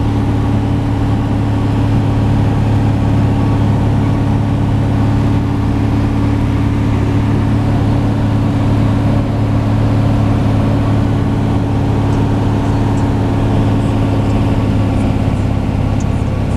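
Light aircraft's engine and propeller droning steadily in flight, heard from inside the cabin.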